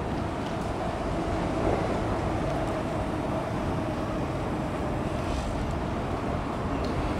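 Steady city background rumble of traffic, with a faint steady hum running through it.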